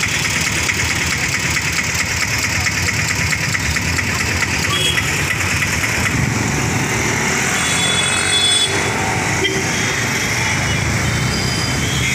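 Steady street traffic noise, with motorcycle and other vehicle engines running past, mixed with indistinct chatter from people walking alongside.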